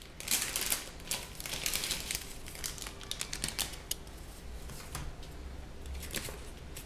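Irregular light clicks and rustles of hands handling a smartphone and its plastic back cover, trying to work out how to open it; the clicks are busiest in the first few seconds and thin out after.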